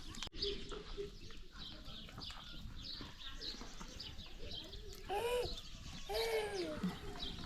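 Small birds chirping steadily in a farmyard. About five and six seconds in come two long, drawn-out animal calls, each rising then falling in pitch.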